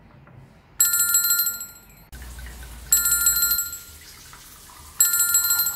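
Edited-in bell ringtone sound effect: three identical short bursts of rapid bell-like ringing about two seconds apart, each fading within a second.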